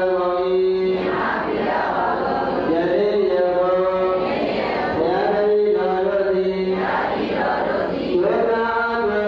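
Buddhist chanting: a voice holding long, sustained notes that slide from pitch to pitch, accompanying the water-pouring dedication of merit.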